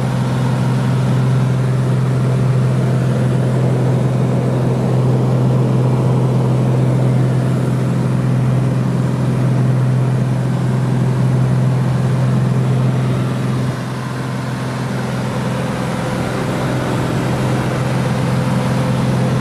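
Cessna 206's single piston engine and propeller droning steadily, heard from inside the cabin. The drone drops a little in loudness about fourteen seconds in, then holds steady.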